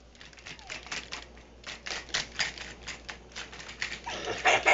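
Quick, irregular ticking and scuffling of a small dog and a child scrambling across the floor in a play chase, with a louder scuffle near the end.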